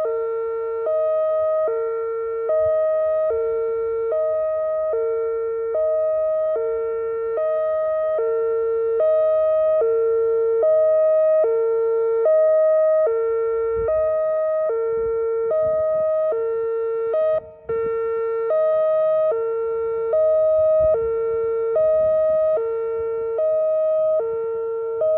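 Electronic door warning alarm sounding a hi-lo two-tone, switching steadily between a higher and a lower note about a second each. It drops out for an instant about two-thirds of the way through.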